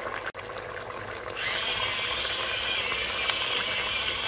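Pepper mill grinding black pepper over the pot: a steady grinding hiss that starts suddenly about a second and a half in.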